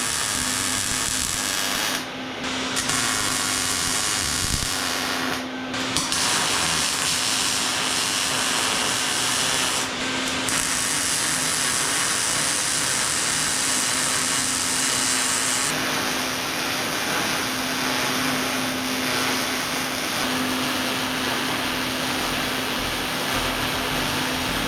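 Grinder running steadily and grinding the edges of welded steel, its motor holding one steady pitch, with two brief let-ups about two and five and a half seconds in.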